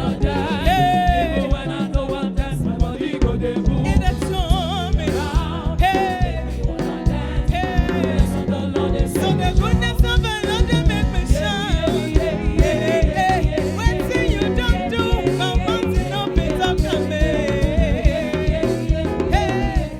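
Live African gospel praise music: a choir singing over a band with a steady dance beat, cutting off abruptly at the end.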